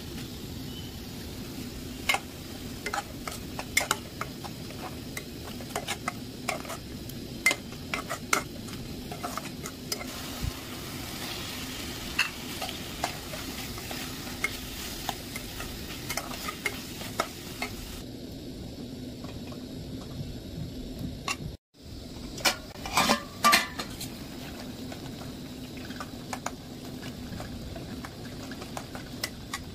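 A metal spatula stirring and scraping a frying tomato masala in an aluminium kadai, with irregular clinks of metal on the pan over a steady sizzle. Shortly after a brief drop-out about two-thirds of the way through comes a quick run of louder clinks.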